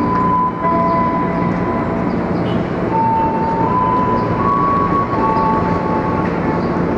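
KRL Commuter Line electric multiple-unit train standing at the platform, running with a steady electrical hum and noise. Several steady whining tones shift in pitch every second or so.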